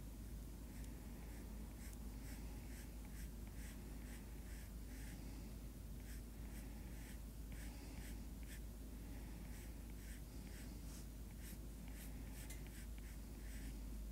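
Stylus stroking and tapping on a tablet's glass screen: short scratchy strokes, several a second in quick irregular runs, over a steady low hum.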